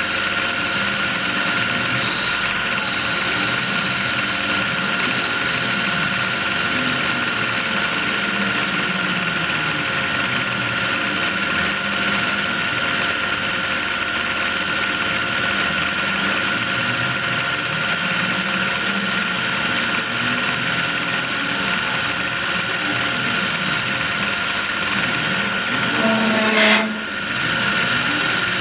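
Tormach PCNC 1100 spindle running with the Duality Lathe attachment while a turning tool makes a pass along a metal part, a steady machine whine with fixed high tones. Near the end comes a short, loud burst of tool chatter, which the owner puts down to a tool shape that doesn't match what the G-code was written for.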